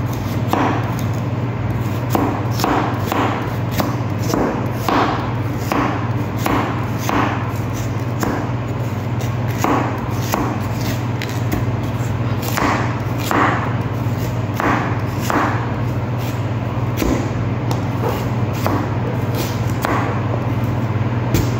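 Kitchen knife chopping through raw carrots onto a plastic cutting board, a sharp chop roughly every half second to second, over a steady low hum.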